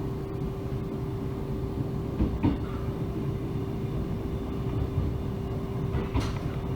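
Mugunghwa-ho passenger train running along the track: a steady low rumble under a constant hum, with a couple of brief sharp knocks from the wheels over the rails.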